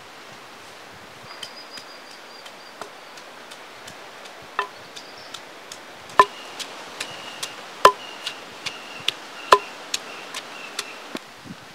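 Long wooden pestle pounding garlic and ginger in a stone mortar: light knocks at first, then heavy strikes about every one and a half seconds from about four seconds in, with lighter taps between. A faint high steady whine runs behind.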